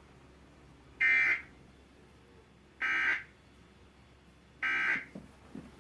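Emergency Alert System end-of-message data tones: three short buzzy bursts of digital data, each about half a second long, coming roughly two seconds apart. They mark the end of the flash flood warning broadcast.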